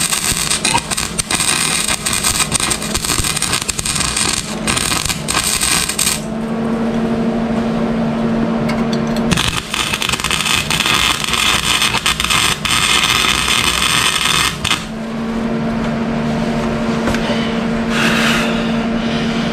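Welding on an exhaust pipe: stretches of crackling, sizzling arc noise with sharp clicks, broken by pauses where a steady hum carries on alone.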